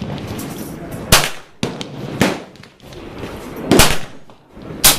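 Suppressed short-barrelled Sig Sauer MCX Rattler in 300 Blackout, fitted with a Yankee Hill Machine suppressor, firing four single shots at uneven spacing of about one to one and a half seconds, each a sharp crack with a short ringing tail.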